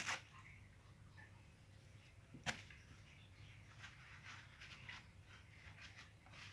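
Faint rustling and crinkling of tissue paper as a cat pulls and tears at it, starting with a short scratchy burst. There is a single sharp click about two and a half seconds in, and a run of small crackling rustles near the end.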